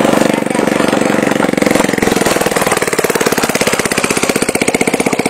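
Motorcycle engine of a homemade wooden car running as the car drives along, its firing beat slowing and becoming more distinct in the second half.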